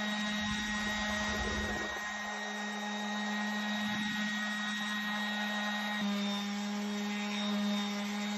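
An electric power tool's motor running at a steady speed, a constant hum with a hiss over it, with a low rumble in the first two seconds and again about four seconds in. The hum shifts abruptly about six seconds in.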